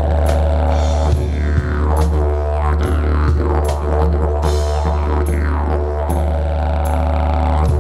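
Didgeridoo played live: a steady low drone with its tone sweeping up and down over it, and short sharp percussive taps every half second or so.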